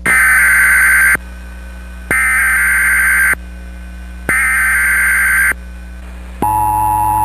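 Emergency Alert System SAME header: three raspy digital data bursts, each about a second long with about a second between them. Near the end the steady EAS attention tone starts, signalling that an alert message follows.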